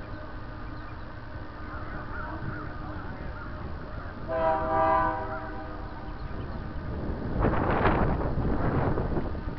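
An approaching freight train's locomotive horn sounds one blast of about a second, about four seconds in, over steady wind noise buffeting the microphone. Near the end a louder gust of wind rushes over the microphone.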